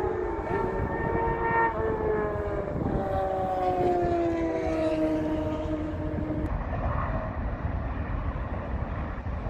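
A siren-like wail with overtones sliding slowly downward in pitch and dying away about six and a half seconds in, over a steady low rumble.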